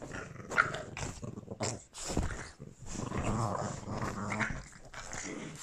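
Boston terriers scuffling in a dog bed and growling at each other, with a few sharp short sounds in the first two seconds, then steady growling.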